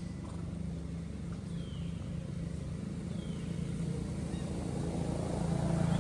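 A steady low engine hum, like a motor running at idle, growing a little louder near the end. Two faint short chirps sound about a second and a half and three seconds in.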